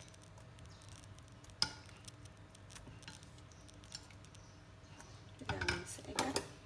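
Wooden chopsticks tapping and clinking against a stainless steel soup pot: a single tap about one and a half seconds in, then a quick cluster of clinks near the end.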